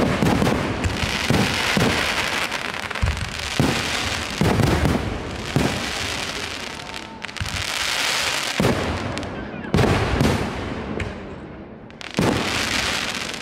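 Aerial fireworks shells bursting in a rapid, irregular series of booms over a dense, continuous crackle from the glittering stars.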